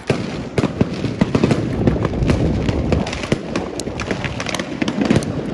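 Fireworks crackling and popping: a dense, irregular run of sharp cracks that goes on without a break.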